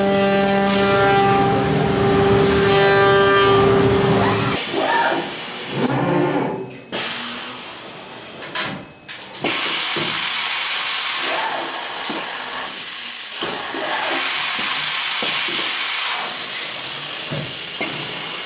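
CNC woodworking machining centre running. It starts with a steady pitched whine, turns to uneven, broken machine sounds with short drop-outs about four and a half seconds in, and settles into a steady loud hiss about nine and a half seconds in.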